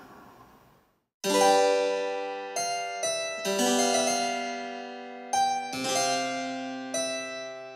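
Background music: a keyboard plays a slow series of struck chords, each left to fade, beginning about a second in after a brief quiet.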